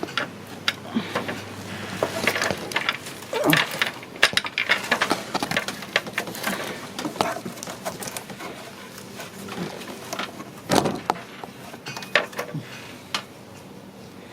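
Irregular clicks and knocks of hand tools and a plastic timing-belt cover on a car engine being unbolted and worked loose.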